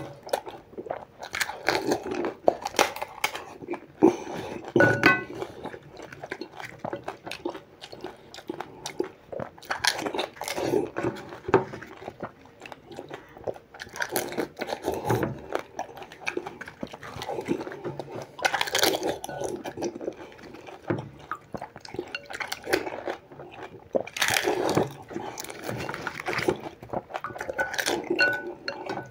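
Continuous crunching and chewing as pani puri are eaten rapidly one after another. Crisp, hollow fried puri shells filled with spiced water are crushed whole in the mouth, in irregular bursts with no pause.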